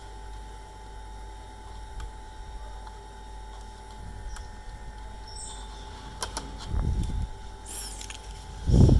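Handling noise from bench repair work: scattered small clicks and ticks, with two dull low thumps, one about seven seconds in and a louder one near the end, over a faint steady hum.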